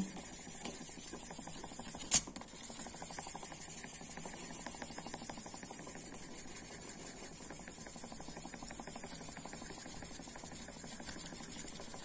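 Fine 3000-grit sandpaper rubbed rapidly back and forth over the translucent plastic scale of a Victorinox Swiss Army knife, a steady fast scratching. One sharp click about two seconds in.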